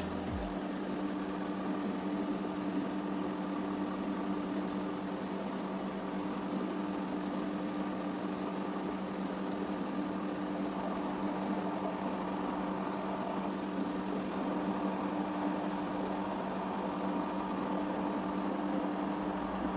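A steady machine hum at a constant pitch, unchanging throughout.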